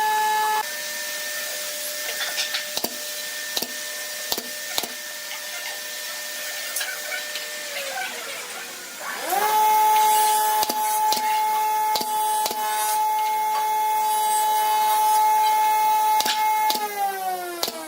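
Electric power tool motor running with a steady high whine. It winds down about eight seconds in, starts up again a second later and winds down again near the end, with sharp knocks scattered throughout.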